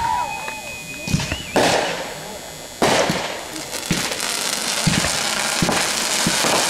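Fireworks going off: a high whistle in the first second or so, several sharp bangs over the first three seconds, then a dense, steady crackle of gold glitter effects.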